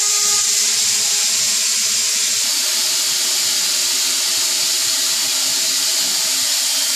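Rotary ayran cup filling and sealing machine running, heard mostly as a loud, steady air-like hiss over a faint low hum, with no clear cycling in it.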